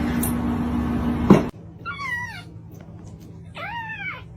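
Domestic cat meowing twice, first a falling call, then a longer call that rises and falls. They come after a stretch of steady noise with a low hum that ends in a click and cuts off abruptly.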